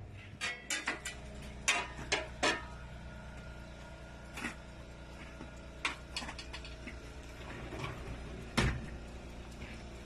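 About a dozen irregular knocks and clicks, the loudest near the end, over a steady low hum.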